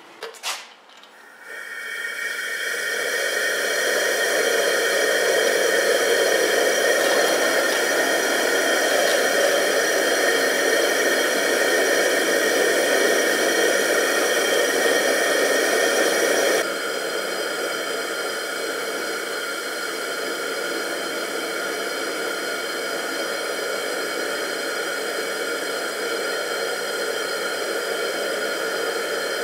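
Propane turkey-fryer burner firing inside a fire-brick kiln: a loud, steady rushing hiss that builds up over the first few seconds, then holds level, dropping slightly in level at a sudden step about halfway through.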